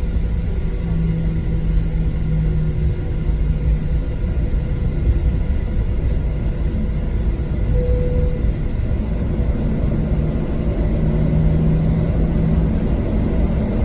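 Steady low rumble inside the cabin of a Boeing 737-700, with faint steady tones running through it.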